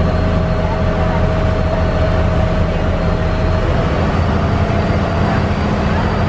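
Tender boat's engine running steadily under way, with water rushing and splashing along the hull.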